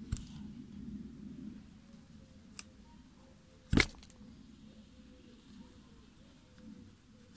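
Hand-pushed carving gouge cutting into a wooden board's edge: faint scraping of the cut, a small click, and one sharp knock a little under four seconds in.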